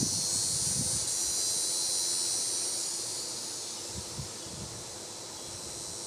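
Steady high-pitched buzzing of an insect chorus, with a few low rumbles of wind on the microphone near the start and again about four seconds in.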